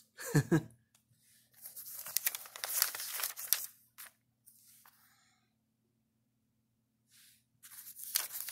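Paper pages of a small booklet rustling as they are handled and turned, in two spells: one about a second and a half in lasting some two seconds, and another near the end.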